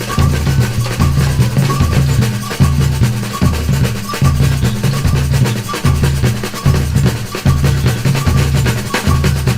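Brazilian batucada percussion group playing a steady samba rhythm: deep bass drums beat a repeating pattern under lighter, quicker drum strokes.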